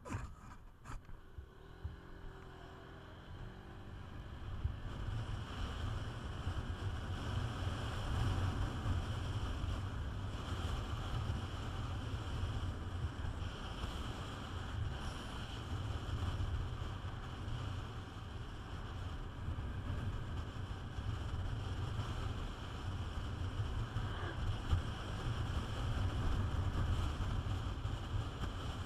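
Wind rushing and buffeting over the microphone on a moving Peugeot Metropolis 400cc scooter, with the scooter's engine running underneath. The noise swells over the first few seconds as the scooter picks up speed, then stays steady. A couple of sharp clicks come at the very start.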